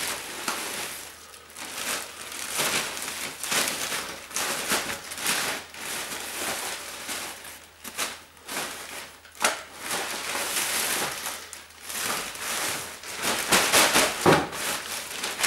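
Plastic bag rustling and crinkling as things are handled and packed into it, with a couple of sharper knocks, one about halfway through and one near the end.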